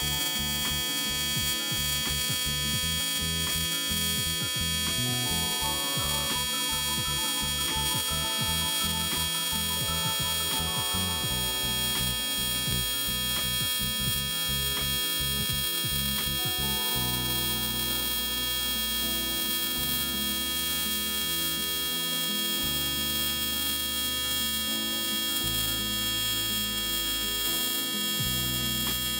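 AC TIG welding arc buzzing steadily while running a bead on thin aluminum sheet, mixed with background music: a beat through the first part, then slow changing bass notes.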